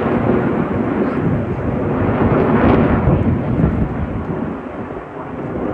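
Jet aircraft flying past, a loud, deep roar that builds to its peak about halfway through and then fades.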